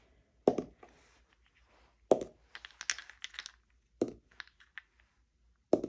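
Four dice tossed onto a table one at a time, about every two seconds, each landing with a sharp knock followed by a few smaller clicks as it settles.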